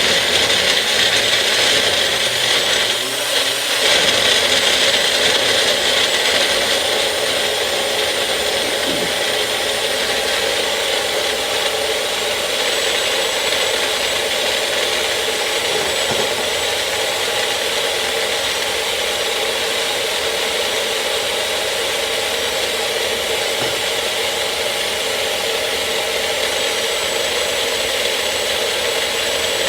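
Electric blender running steadily, grinding garlic with a little apple cider added as the liquid.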